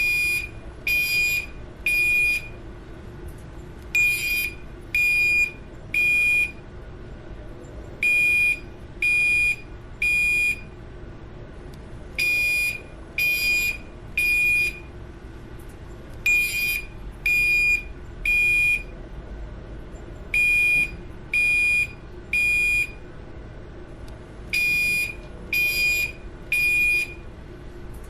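Building fire alarm sounding the temporal-three evacuation pattern: three high-pitched half-second tones about a second apart, then a pause, the group repeating about every four seconds. A steady low hum runs underneath.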